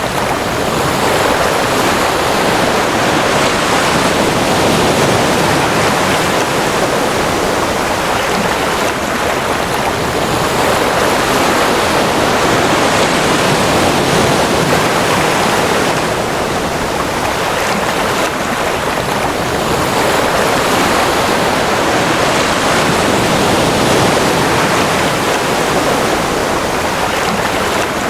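Ocean waves: a continuous rushing wash of surf that swells and eases gently every several seconds, with no single breaking crash standing out.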